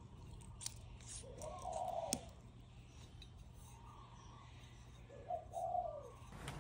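A dove cooing: three short coos that rise and fall in pitch. A few light clicks come from the aluminium rack parts being handled.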